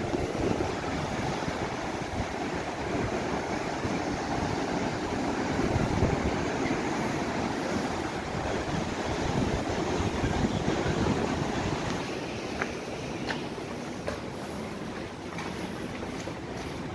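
Wind buffeting the microphone over the rush of breaking surf, a steady noisy rumble. It eases about twelve seconds in, and a few light clicks follow.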